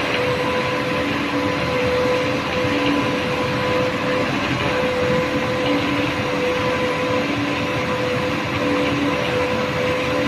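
Concrete mixer machine running steadily: a dense mechanical rattle with a constant hum, and a lower tone that swells about every second and a half as the drum turns.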